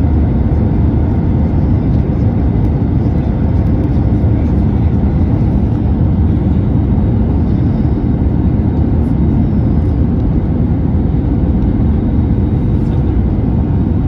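Steady low cabin noise of an Airbus A320neo airliner during its landing, with engine and airflow noise at an even level and a faint steady tone.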